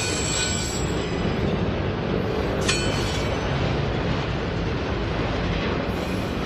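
Freight train of autorack cars rolling past close by: a steady rumble of steel wheels on the rails. A high wheel squeal fades out within the first second, and there is a sharp metallic clank a little under three seconds in.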